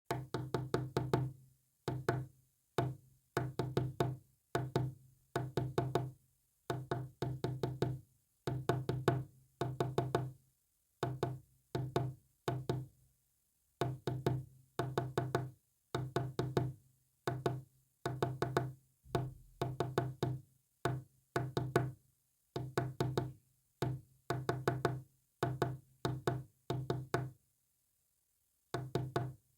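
Morse code sounded as groups of short, low buzzy pulses, with silent gaps between the groups and a longer pause near the end.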